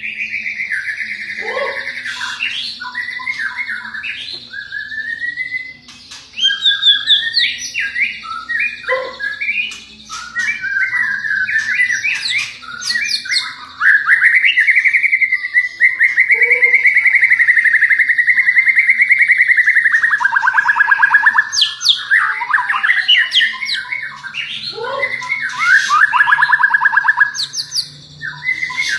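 White-rumped shama (murai batu) singing loudly: a varied run of whistled phrases, quick trills and harsh notes, with one long rapid rattling trill held for several seconds around the middle.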